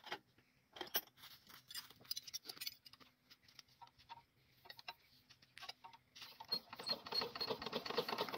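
Faint, scattered metallic clicks and clinks from hands working on an old Petter diesel engine as it is readied for starting. A faster run of rattling ticks builds over the last two seconds.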